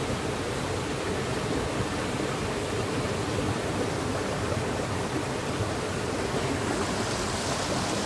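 Steady rush of a shallow forest stream running over rocks.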